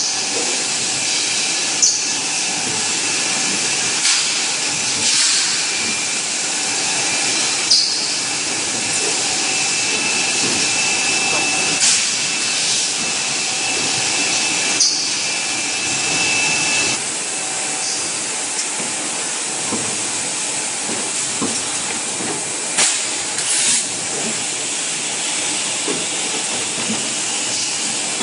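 Blow moulding machine for feeding bottles running: a steady hiss of compressed air with short, sharp pneumatic blasts every few seconds as the moulds blow and vent.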